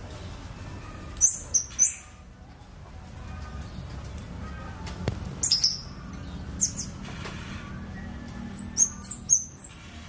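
Caged kemade songbird giving short, very high-pitched chirps in quick clusters: a few about a second in, more around five and a half seconds, and a fast run of five or so near the end, over a steady low hum.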